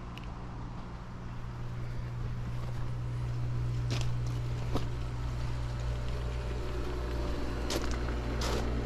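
Steady low engine hum that grows slightly louder, with a few light clicks from about four seconds in.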